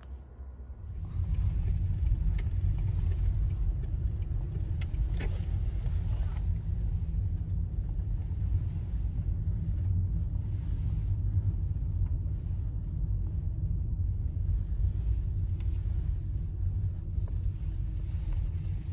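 Steady low road-and-engine rumble inside the cabin of a moving car, starting about a second in.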